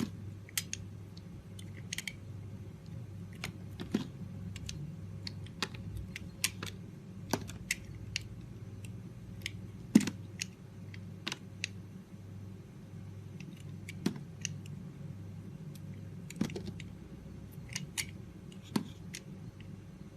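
A knife carving a bar of soap: irregular sharp, crisp clicks and cracks, about one or two a second, with one louder crack about halfway through.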